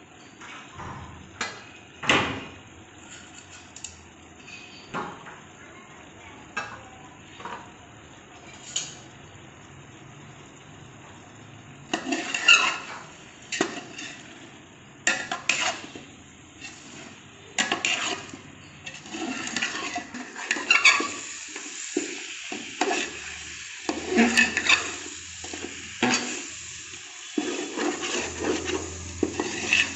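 Metal utensils knocking and scraping against a cooking pot in a series of separate clinks. From about two-thirds of the way in, frying sizzle joins them as a steady hiss.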